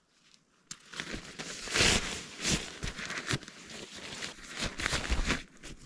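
Nylon fabric rustling and crinkling as a green sleeping pad is handled and pushed into an orange Therm-a-Rest chair sleeve. It starts under a second in and is loudest around two seconds.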